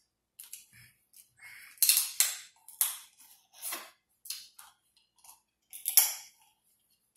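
Close-up eating of king crab legs by hand: a string of short, sharp crackling snaps and smacks as the crab is pulled apart and chewed, with quiet gaps between, loudest about two seconds in and again near the end.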